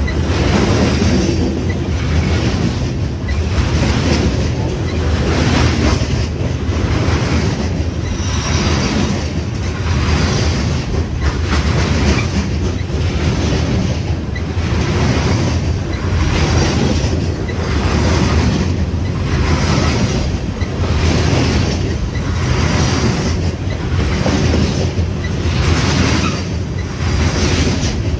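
Long freight train of open-top hopper cars rolling past at speed, close by. A steady rumble and rush of steel wheels on rail pulses about once a second as car after car goes by.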